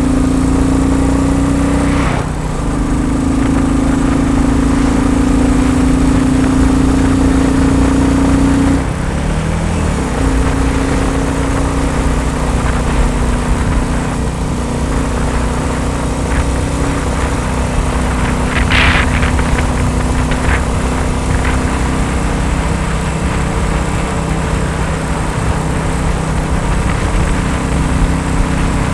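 Royal Enfield Bullet 350 single-cylinder engine running under way with a steady engine note. It dips briefly about two seconds in, drops in pitch about nine seconds in, and then keeps running lower. A short rush of noise comes about two-thirds of the way through.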